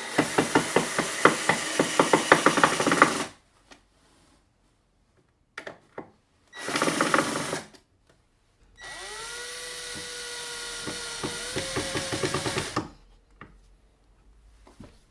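Cordless screwdriver driving screws into a wooden board, in three runs: first a few seconds of motor with rapid ratcheting clicks, then a second short burst of clicking, then the motor winding up to a steady whine that breaks into rapid clicking before it stops. A few single clicks fall in the pauses.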